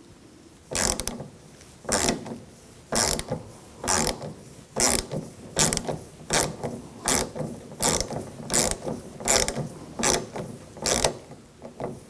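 Hand ratchet with an 8mm socket working to loosen a nut: a short burst of pawl clicks on each back-swing, repeating about every 0.7 s from just under a second in.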